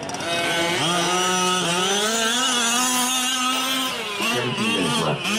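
Small two-stroke gas engines of 5th-scale RC off-road race trucks revving hard. The pitch climbs just after the start and again about a second and a half in, holds steady at high revs for about two seconds, then wavers and drops near the end as the throttle comes off and on.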